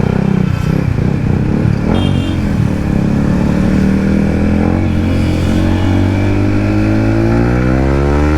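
Yamaha MT-15's single-cylinder engine through an aftermarket Akrapovic exhaust, riding under steady throttle. Its note climbs gradually through the second half as the revs build in one gear.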